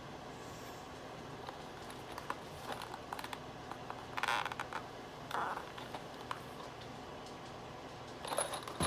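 Small handling noises over a steady low hum: scattered light clicks, with two short rustling scrapes about four and five seconds in, as tools and hardware are picked up and set down.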